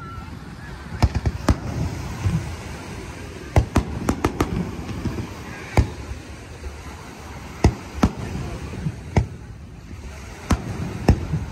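Aerial firework shells bursting overhead: about a dozen sharp bangs at irregular intervals, some close together in quick runs.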